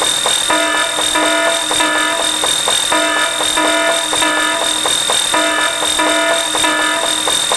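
Electronic sound effects: short pitched tones sounding in quick repeating groups with brief gaps between them, over a steady high whine and hiss.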